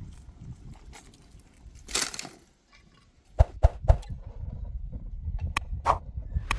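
Scattered knocks and clicks, with a short rush of noise about two seconds in and several sharper knocks from about three and a half seconds on.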